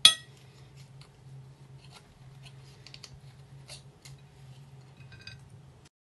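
A sharp, ringing clink of a metal skewer against a ceramic plate, then faint scraping and clicking as grilled chicken pieces are pushed off the skewer onto the plate. A low steady hum runs underneath, and the sound drops out near the end.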